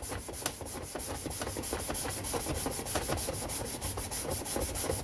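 Fine sandpaper rubbed quickly back and forth by hand over the oxidized plastic top cover of a Husqvarna 2100 chainsaw: a steady run of short scratchy strokes as the chalky oxidized surface is sanded off.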